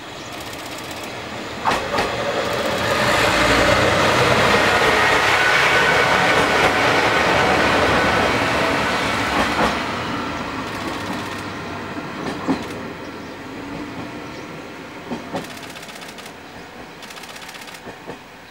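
Sanriku Railway 36-100 series single-car diesel railcar running through the station without stopping: its diesel engine and wheels swell to loudest a few seconds in, then fade slowly as it pulls away. The wheels clack over rail joints in pairs several times.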